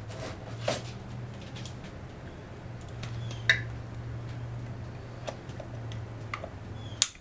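Scattered light clicks and taps from handling plastic zip ties and small hand tools, over a steady low hum. The sharpest click comes near the end.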